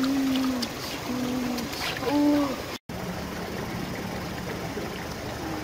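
Stream water running over rocks, a steady wash. In the first half, four short, low tones, each falling away at its end, sound over the water. The sound drops out for a moment about halfway through.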